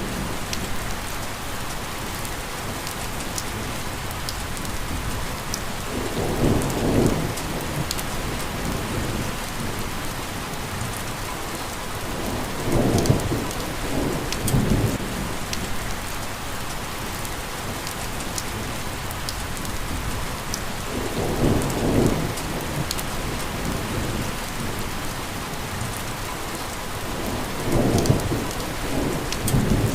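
Steady rain falling, with scattered drop ticks, and a low rumble of thunder swelling up four times, each a second or two long, about every six or seven seconds.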